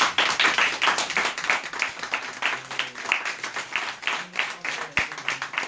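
A small group applauding, with many hands clapping in a dense, irregular patter.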